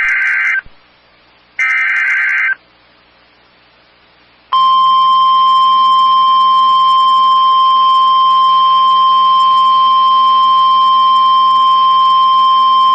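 NOAA Weather Radio Emergency Alert System signal: the end of the SAME header, two short digital data bursts, each about a second long, then after a short gap the steady, loud 1050 Hz warning alarm tone, held unbroken from about four and a half seconds in. This is the alert sequence that comes before a severe thunderstorm warning is read.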